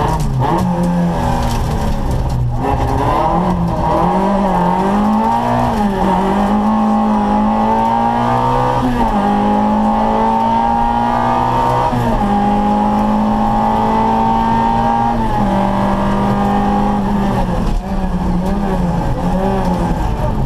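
Škoda Favorit rally car's 1.3-litre four-cylinder engine at racing revs, heard from inside the cabin. The revs rise and fall in the first few seconds. They then climb steadily and drop sharply at three upshifts, about nine, twelve and fifteen seconds in, and rise and fall again near the end.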